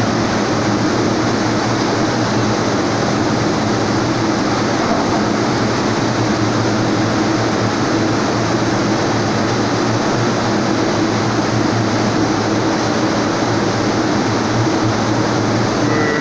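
Steady, loud industrial din of a steel mill melt shop: continuous machinery noise with a low hum under it, and a brief high beep right at the end.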